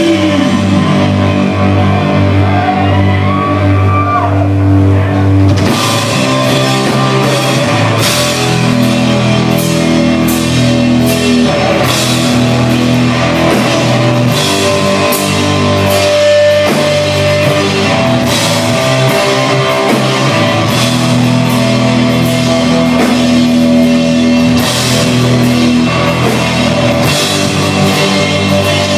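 Live heavy rock band playing loud distorted guitar and bass chords. The drum kit comes in about six seconds in, with repeated cymbal crashes over the riff.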